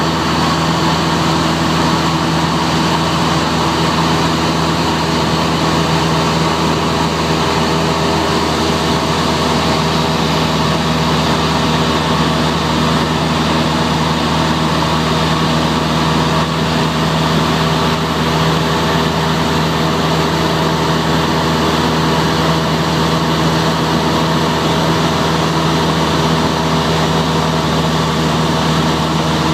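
Cessna 172's piston engine and propeller droning steadily at a constant setting in cruise, heard from inside the cabin as a loud, even hum with a fixed pitch.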